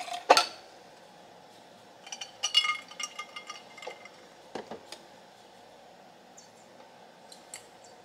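Glassware clinking and knocking on a kitchen counter: a sharp knock just after the start, like a glass bottle set down, then a run of short ringing glass clinks about two to three seconds in and another knock about four and a half seconds in.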